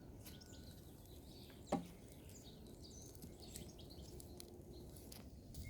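Faint crackling and popping of a small wood campfire, with one sharper crack about two seconds in, and birds chirping now and then.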